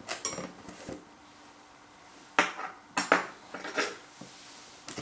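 Sharp clinks and knocks of cutlery against a ceramic bowl, a few light ones in the first second, then louder strokes between about two and a half and four seconds in.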